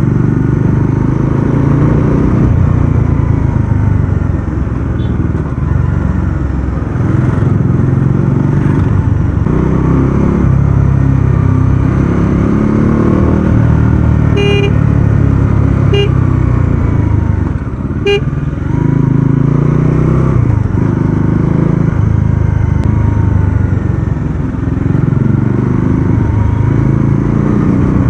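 Bajaj Dominar 400's single-cylinder engine running under way, heard from the rider's seat, its pitch rising and falling with throttle and gear changes. Three short horn beeps sound about halfway through.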